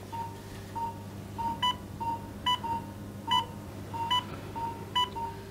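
Operating-theatre patient monitor beeping steadily in time with the patient's pulse. Two runs of short electronic beeps go together, a plain one repeating a little more than once a second and a brighter one with overtones just under once a second, over a low steady hum.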